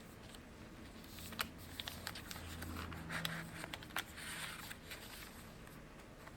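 Pages of a handmade paper journal being turned and handled: soft paper rustles and light clicks, busiest between about one and five seconds in.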